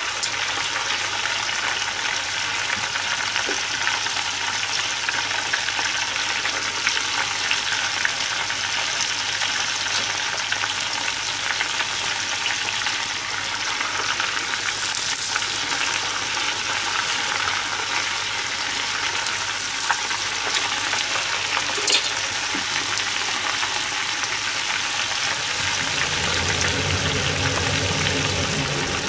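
Hot oil sizzling steadily in a copper deep-frying pot as pieces of food fry. A low hum comes in near the end.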